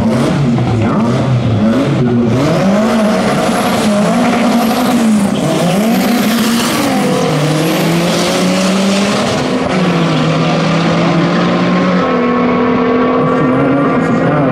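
Turbocharged drag cars, including the twin-engine Vauxhall Astra pickup with its two turbocharged Saab 2.3-litre engines, revving on the start line and then launching at full throttle. Engine pitch bounces up and down, then climbs steadily, dropping at each gear change about 7, 10 and 12 seconds in.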